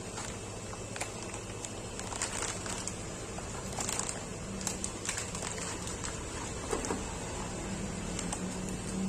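Snack hamper packaging being handled: plastic wrapping crinkling, with scattered clicks and taps.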